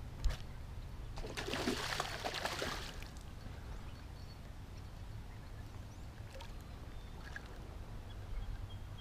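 A hooked bass splashing and thrashing at the water's surface for about two seconds, starting about a second in, just after a sharp knock. A steady low rumble lies under it throughout.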